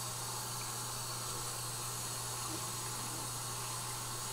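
Tap water running steadily into a ceramic bathroom sink and splashing over a small glass pipe rinsed under the stream, with a steady low hum underneath.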